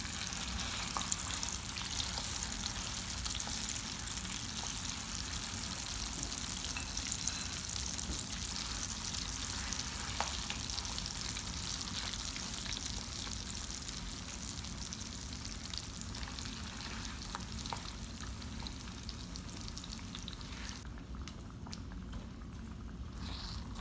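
Blended chana dal paste sizzling as it fries in hot ghee in a pan, with a few light clicks as it is stirred. The sizzle dies down near the end.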